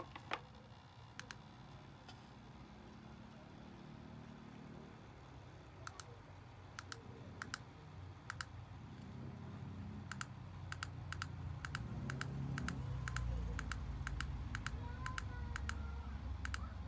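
Small plastic button clicks, pressed one after another at an uneven pace, typical of the inline control button on a USB ring light being pressed to switch it on and step through its brightness and colour settings. The clicks are few at first and come quickly in the second half, over a low rumble that swells up in that half.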